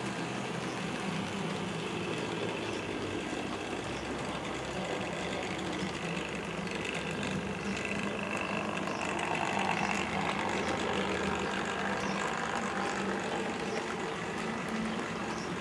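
Electric motors and wheels of OO gauge model trains running on the track: a steady whirring hum with light clicking from the wheels on the rails. It grows louder about nine to eleven seconds in as a model steam locomotive and its coaches pass close by.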